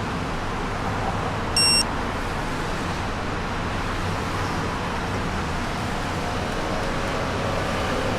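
Steady road and traffic noise with a rush of wind, and one short, high electronic beep about a second and a half in.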